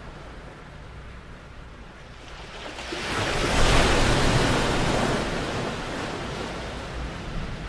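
Ocean surf washing onto the shore: a wave swells up about three seconds in and slowly washes out, with a low wind rumble on the microphone underneath.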